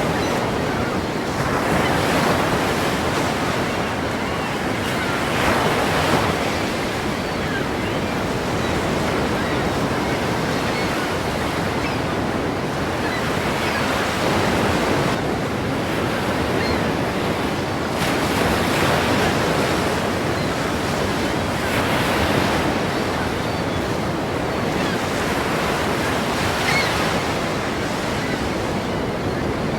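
Ocean waves breaking and washing in as a continuous surf, swelling louder every few seconds.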